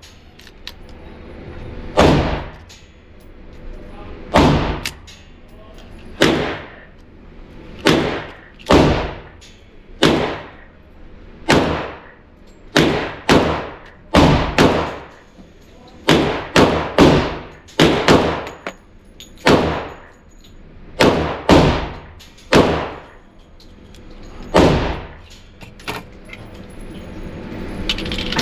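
Gunshots: a firearm fired repeatedly, about twenty shots at uneven spacing of half a second to two seconds apart, each followed by a short echoing tail.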